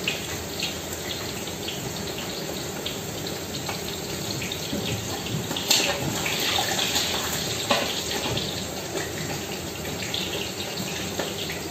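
Quail frying in hot oil in wide pans: a steady sizzle with dense crackling, swelling a little about six seconds in.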